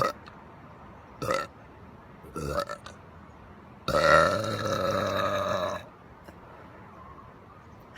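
A woman burping: a few short burps, then one long, loud, drawn-out burp of about two seconds starting about four seconds in.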